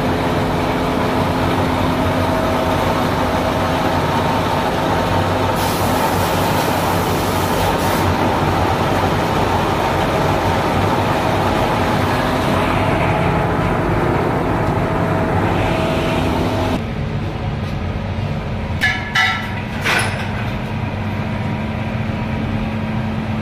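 Steady factory machinery noise, a continuous mechanical hum with a few held tones, that drops abruptly about two-thirds of the way through to a lighter steady hum, with a few short knocks near the end.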